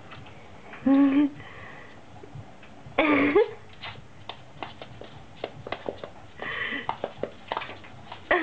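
Puppy barking at its own reflection: two short, high yips about a second and three seconds in, and another at the very end. In between, sharp clicks and taps from its claws on the hardwood floor and its paws against the mirror.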